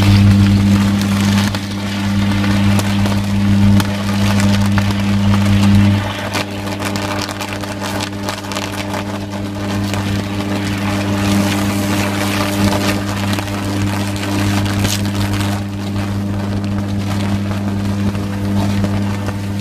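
Short-circuit arc on an overhead power line at a utility pole, buzzing with a steady low hum under continuous crackling. The hum is loudest for the first six seconds, then drops in level but keeps going. It is the sound of a fault current arcing across the line.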